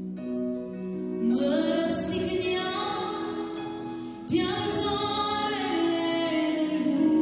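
Slow Christian worship song: electric keyboard chords with a woman singing, fresh chords struck about a second in and again around four seconds in.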